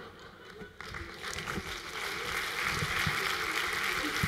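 Audience laughing and applauding, the applause starting about a second in and swelling into a full, steady clapping.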